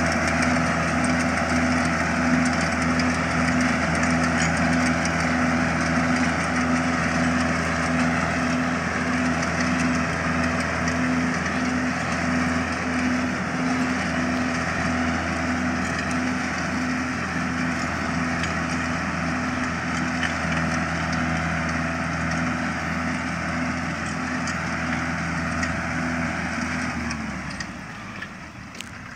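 Tractor's diesel engine running steadily as it pulls a stubble shaver through sugarcane stubble. The steady engine hum drops away abruptly near the end.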